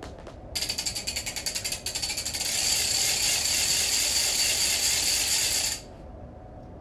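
Ratchet clicking, a foley sound for a propeller being wound up: rapid separate clicks starting about half a second in, running together into a continuous rattle, then stopping suddenly about a second before the end.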